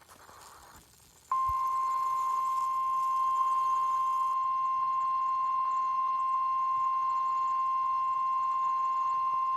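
NOAA Weather Radio 1050 Hz warning alarm tone: one steady, unwavering high tone that starts about a second in and holds. It signals that a warning broadcast, here a severe thunderstorm warning, is about to follow.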